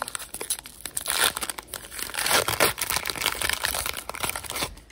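Foil wrapper of a Donruss basketball card pack crinkling loudly and irregularly as it is handled and ripped open.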